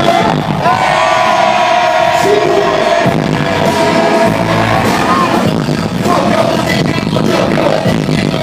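Live concert music: a voice sings long held notes over a loud, steady backing track.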